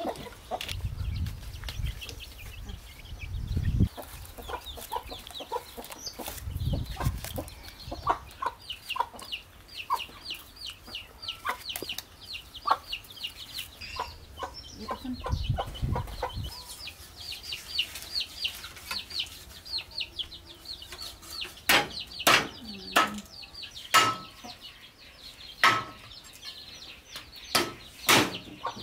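Water sloshing and dripping as bananas are washed by hand in a metal basin. Then chickens cluck and chirp around a hen. Near the end a cleaver chops beef ribs on a wooden block in a series of sharp, loud knocks.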